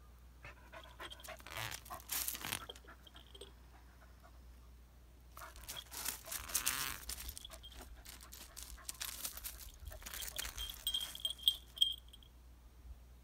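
A dog's paws crunching and scuffling on loose gravel in three spells as it moves about, with a short high tinkle near the end.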